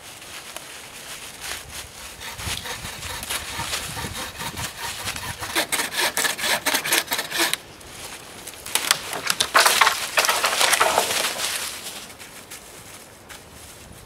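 Dry, well-seasoned dead sapling being broken down: scraping and creaking wood with a run of quick strokes, then after a short lull, loud cracking and splintering of the dry wood as it gives way.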